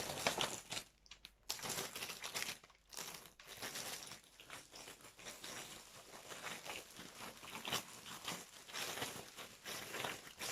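Packaging crinkling and rustling in irregular bursts as it is handled and pulled open.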